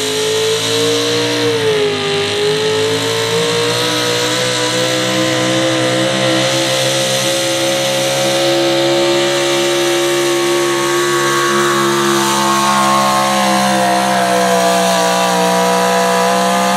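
Super stock gas pulling truck's engine running flat out under heavy load as it drags a weight-transfer sled. The pitch sags briefly about two seconds in, recovers and holds high and steady, then falls away sharply at the very end as the throttle comes off.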